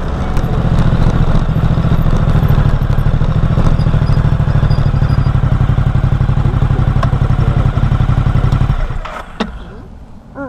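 A car on the move: a loud, rumbling, fast-pulsing road and engine noise that drops away about nine seconds in, followed by a short click.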